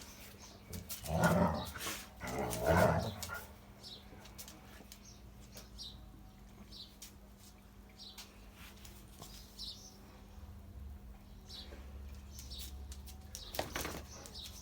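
Big dog giving two low woofs about a second and a half apart, with a shorter one near the end.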